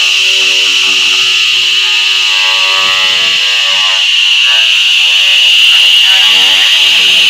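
A 3 kW laser cleaner ablating grime off an aluminium gearbox housing: a loud, steady, high-pitched buzz with a hiss above it.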